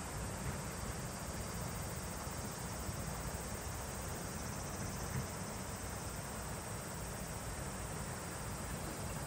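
Steady rush of a shallow, rocky river running over riffles, with a constant chorus of insects and wind buffeting the microphone in the low end.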